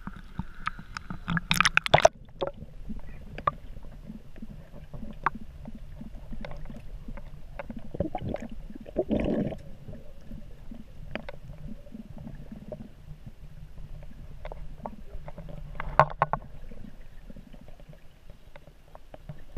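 Water sloshing and splashing at a camera dipped into a cenote, then muffled underwater noise: a low rumble with scattered small clicks and bursts of gurgling bubbles, loudest around eight to nine seconds in.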